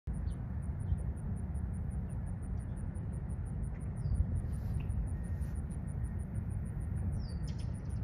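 Outdoor ambience dominated by a steady low rumble. Over it an insect chirps on a high, even pulse about five times a second, and a bird gives two short falling chirps, about four seconds in and near the end.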